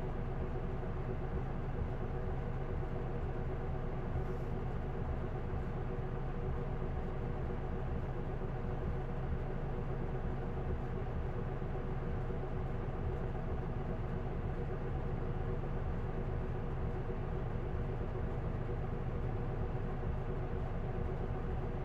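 Isuzu Erga city bus's inline-six diesel engine running steadily, heard from inside the bus. The pitch holds level with a low drone and several steady tones.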